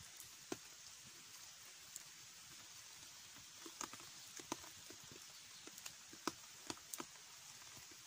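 Wood campfire crackling: irregular sharp pops and snaps, the loudest a little after six seconds in, over a faint steady hiss.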